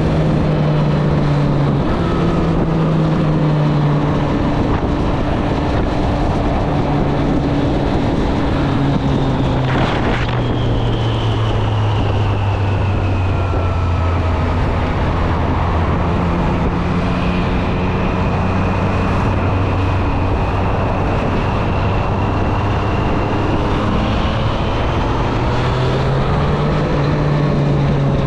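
Triumph Street Triple 765 RS's inline three-cylinder engine running on the move, with wind rushing over the microphone. The engine note changes in steps, holds lower through the middle and climbs again near the end.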